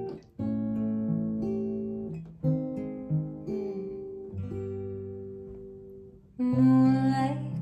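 Acoustic guitar playing a slow intro: a handful of chords strummed one at a time and left to ring and fade, with a louder, fuller strum near the end.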